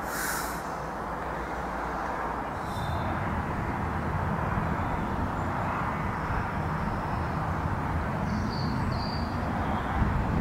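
Steady rushing outdoor noise that deepens into a low rumble about two and a half seconds in, with a brief rustle at the start and a few faint high chirps near the end.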